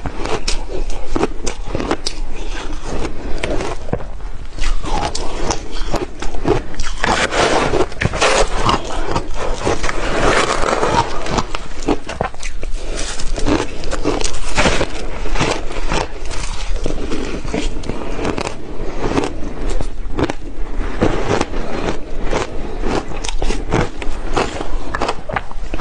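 Crushed ice being crunched and chewed, close-miked, with a metal spoon scraping and scooping through the ice in a glass bowl. A dense, constant stream of crisp crackling clicks, with a thicker scratchy stretch around the middle.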